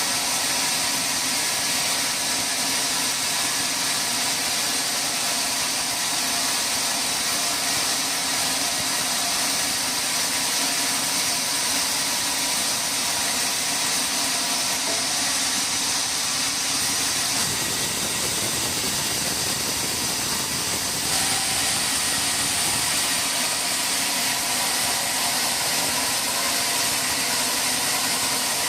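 Sawmill machinery running steadily with a strong hiss, a lower rumble joining for a few seconds past the middle.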